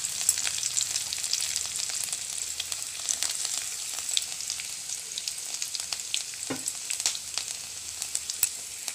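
Chopped garlic frying in hot ghee in a metal kadhai: a steady sizzle with many small crackles and pops.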